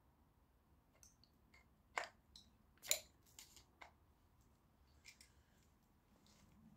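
A metal hand tool clicking and scraping against an electric motor's housing and copper windings as it is pried apart. The clicks are irregular, with the two sharpest about two and three seconds in.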